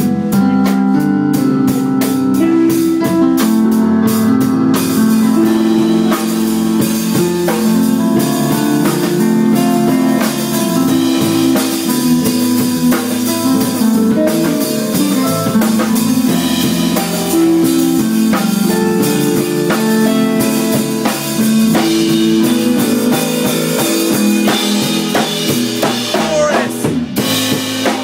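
Music: long held keyboard notes over a drum kit beat.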